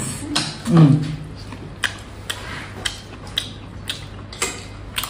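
Eating at the table: scattered sharp clicks of wooden chopsticks against a porcelain rice bowl, along with chewing, and a short hum from the eater about a second in.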